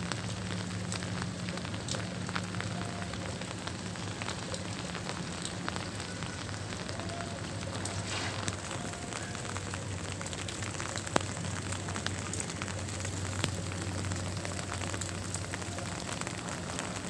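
Heavy rain falling steadily, with scattered sharper drop hits and a faint low steady hum underneath; one sharp tap about eleven seconds in.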